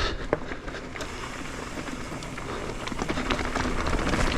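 Mountain bike rolling along a dirt trail: tyres crackling over loose dirt and gravel, with many small clicks and rattles, getting a little louder after about three seconds.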